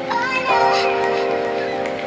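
Background music: sustained chords with a brief rising melodic phrase at the start, changing to a new chord about half a second in.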